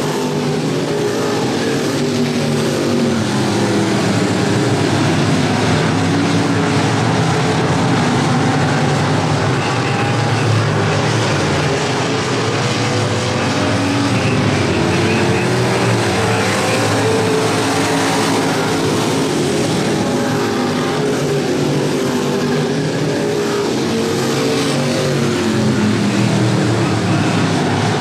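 Several street stock race cars' engines running together at racing speed, overlapping, their pitch rising and falling as they rev up and ease off.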